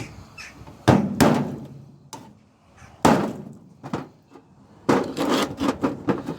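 Hammer blows on small microwave fan motors resting on a pair of transformers, knocking the copper winding spool out of the motor frame. Sharp metal knocks: two about a second in, one near the middle, then a quick run of several near the end.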